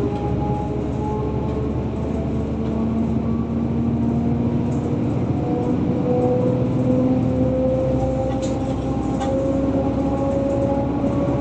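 Car driving on an open road: steady tyre and road noise under the engine's whine, which rises slowly in pitch as the car gathers speed.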